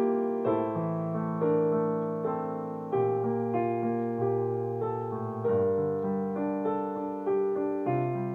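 Slow, gentle solo piano music: soft notes and chords struck about every three-quarters of a second, each left to ring and fade.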